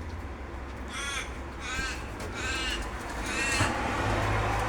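A pet bird giving four short, harsh calls, roughly one every three-quarters of a second, which its owner takes as a sign that it dislikes the phone's flash light.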